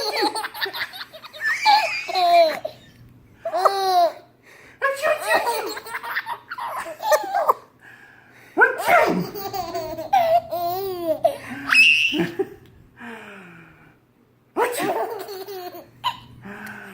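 A baby laughing hard in repeated bursts of belly laughs and squealing giggles, with short pauses between them.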